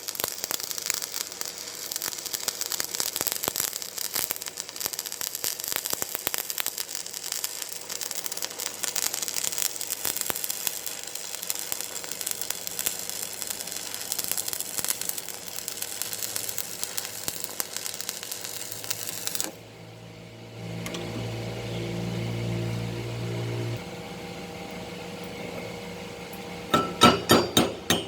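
Stick (arc) welding with a 2.2 mm electrode: the arc crackles and sizzles steadily, then cuts off about twenty seconds in. A low hum follows briefly, and near the end quick repeated hammer taps, as if chipping slag off the weld.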